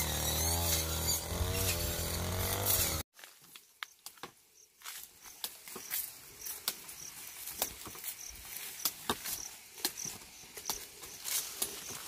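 The small engine of a handheld power tool runs for about three seconds, revving up and down, then cuts off suddenly. After that come scattered crisp snaps and rustling of sugarcane stalks and dry leaves being cut and stripped by hand.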